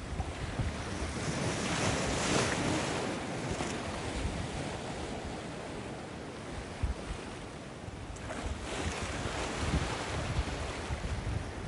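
Ocean surf: waves washing and breaking, swelling about two seconds in and again about eight seconds in, with wind buffeting the microphone.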